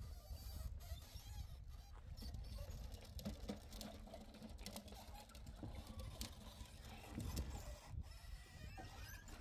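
Chickens clucking faintly in short scattered calls over a steady low rumble.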